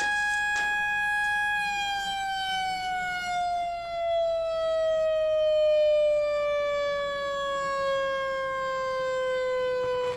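Recorded mine-blast warning siren played through the model mine's small speaker: one long wail that holds its pitch for about two seconds, then slowly falls.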